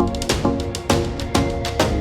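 Background music with a steady beat, a drum hit about twice a second under sustained notes.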